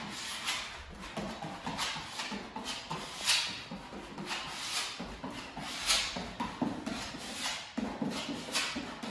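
Putty knife scraping and spreading wood filler into cracks between hardwood floorboards, a run of repeated short scraping strokes, two of them louder than the rest.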